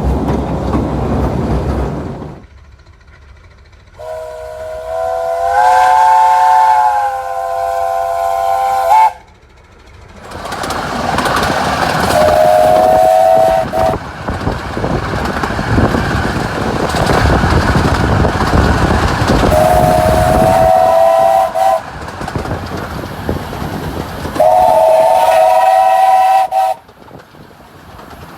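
Steam locomotive whistles sounding across a series of short clips: a chord whistle sounding several notes at once and held for about five seconds, then a steam train running, with three whistle blasts of about two seconds each over the rumble of the train.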